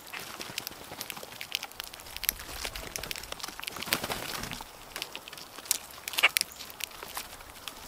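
Grackles foraging in dry forest-floor litter and wood chips: a steady scatter of small pecking, scratching and rustling clicks. About four seconds in there is a brief rush of wingbeats as a blue jay and a grackle fly up, and near six seconds there is one louder, sharp sound.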